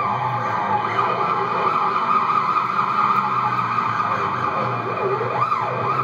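Loud, dense, droning live band music with a pitch glide sweeping up and back down about five seconds in, heard through the screening room's speakers.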